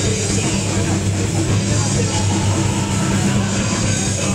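A live heavy rock band playing loud: distorted electric guitars over a drum kit, a dense, unbroken wall of sound.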